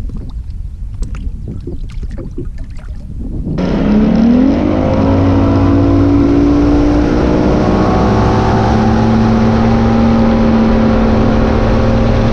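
Boat outboard motor: low rumble with scattered knocks at first, then about three and a half seconds in the engine comes in loud, rises in pitch as it speeds up and settles into a steady run.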